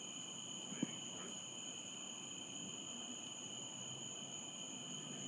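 Crickets trilling steadily in a high-pitched chorus, with one faint click about a second in.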